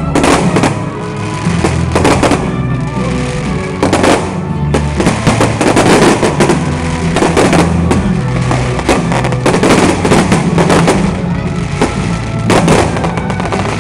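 Aerial fireworks going off again and again, sharp bangs and crackle, over loud music playing.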